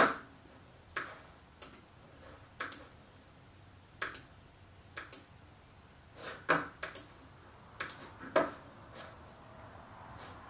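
Irregular clicking of a computer mouse and keyboard: about a dozen short clicks, some in quick pairs.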